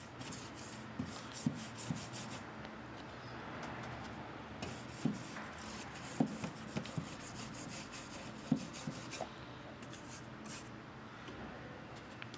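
Paintbrush scrubbing paint onto a dollhouse wall: a steady rubbing, broken by a handful of short taps as the brush strikes the surface.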